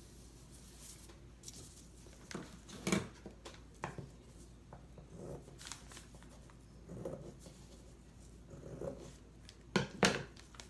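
Cotton fabric being ripped by hand into inch-wide strips, in a series of short rips, with a sharper pair near the end.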